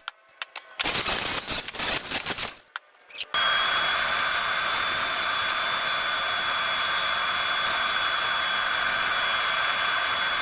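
A handheld power tool working the steel for the Jeep's seat brackets. There are two short bursts broken by abrupt cuts, then from about three seconds in it runs steadily with a constant high whine.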